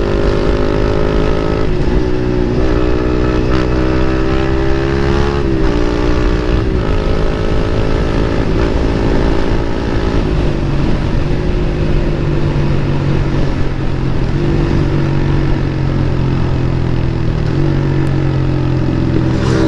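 Motorcycle with an aftermarket Akrapovic exhaust running at speed under a rider, its engine note shifting in pitch several times as the throttle and gears change.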